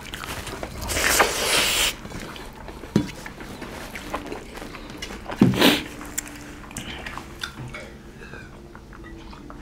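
Close-up eating noises: two people chewing and smacking as they eat rice and smoked pork porridge by hand, with louder noisy swells about a second in and just past halfway.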